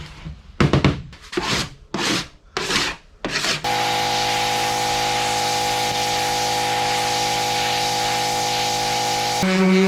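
About half a dozen quick rubbing strokes on the painted aluminum canoe hull as paint stripper is worked over it, then from about four seconds in a steady held music chord takes over.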